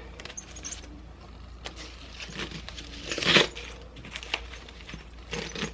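Rustling and handling noise as a leather shoulder bag with a chain strap is picked up and put on, with scattered light clicks and a louder rustle about three seconds in.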